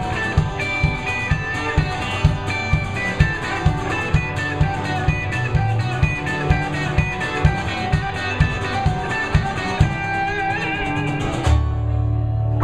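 Live acoustic band playing the closing bars of a song: strummed acoustic guitar, a small plucked instrument, electric guitar and upright bass over a steady kick drum at about two beats a second. About a second before the end they land together on one final chord, which rings on.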